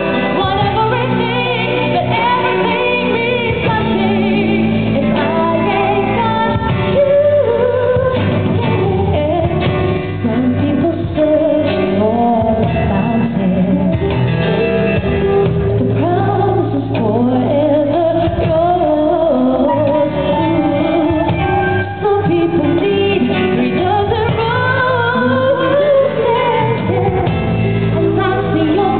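Live band playing a pop song, with a singer over guitar and bass.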